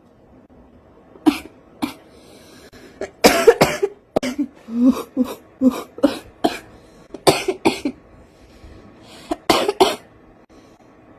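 A woman smoker coughing in repeated bouts, single coughs and quick runs of two or three, about a dozen in all, with a stretch of lower, hoarse hacking about four to five seconds in. The cough sounds bad.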